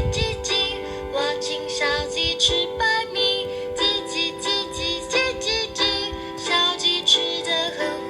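A children's song playing: a high singing voice in short, quick notes over a steady held accompaniment.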